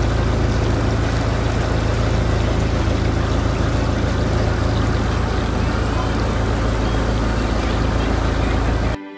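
Motorboat engine running steadily as the boat travels along the canal, with the noise of the water; it cuts off suddenly near the end.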